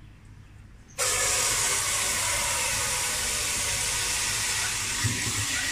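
A kitchen tap is turned on about a second in, and its stream pours steadily into a stainless steel pot sitting in a stainless steel sink, filling the pot with water.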